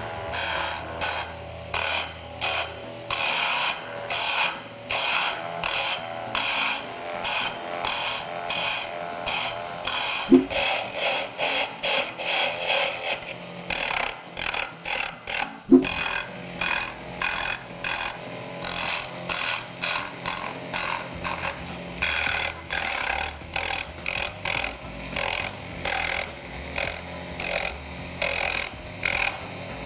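Wood being turned on a small tabletop lathe (BenKit lathe module): a hand-held shaper pen scrapes the spinning wooden cylinder in short touch-and-pull-back strokes, about two scrapes a second. Twice, a third and a half of the way through, there is a sharp click.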